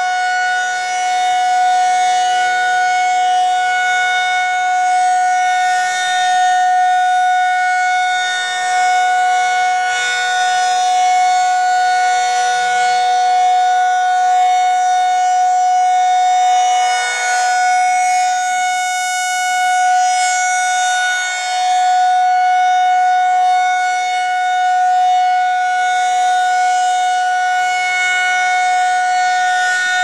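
Federal Signal 2001-SRN rotating outdoor warning siren sounding its steady high-pitched alert tone, which swells and fades as the horn turns. This is the alert cycle, run as a monthly test.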